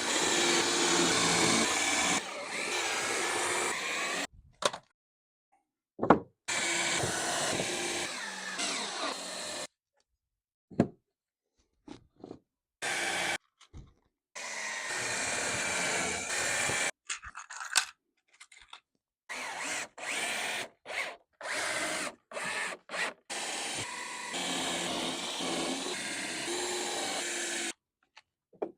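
Power drill drilling and driving screws into pallet wood. It runs in bursts of a few seconds, broken by short silences, with a few sharp knocks of wood between them.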